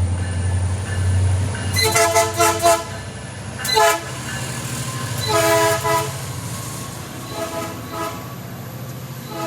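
Multi-chime train horn sounding its chord in a series of blasts. A quick run of short toots comes about two seconds in, a brief sharp blast just before four seconds and a longer blast around five and a half seconds. Two fainter short toots follow near the end, over a steady low engine rumble.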